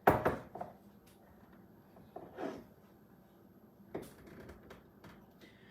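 A few sharp knocks and clicks from handling a stuck container lid while trying to force it open; the loudest knock comes at the very start, with fainter ones about halfway and about four seconds in.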